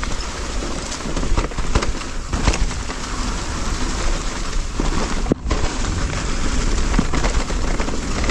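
Amflow PL Carbon e-mountain bike descending over roots on a leaf-covered trail: a steady rush of tyre and riding noise with frequent small knocks. Through it runs a light rattle from the bike, whose cause the rider doesn't know and which he judges to stay within limits.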